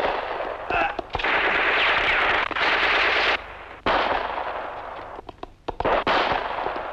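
A string of gunshots in an old war-film soundtrack, each followed by a long echoing tail, with a quicker cluster of shots about five seconds in.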